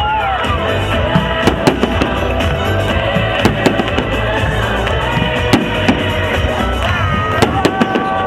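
Fireworks going off in a dense, irregular barrage of sharp bangs and cracks, several a second, over a steady low rumble, with music playing at the same time.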